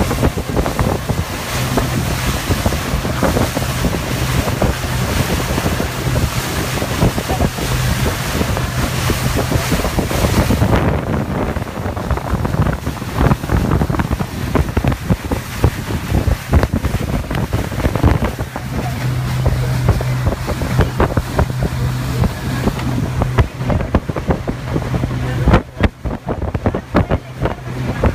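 Motorboat engine running with a low steady hum, under heavy wind buffeting the microphone and water splashing against the hull. The hum stands out over the first ten seconds and again later.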